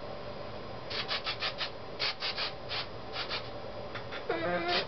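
Hairspray sprayed onto curled hair in quick runs of short spritzes, several a second. A brief vocal sound comes near the end.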